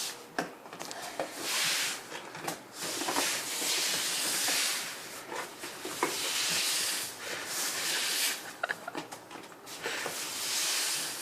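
Broom sweeping up hailstones on hard ground: repeated swishing strokes every second or two, with small clicks in between.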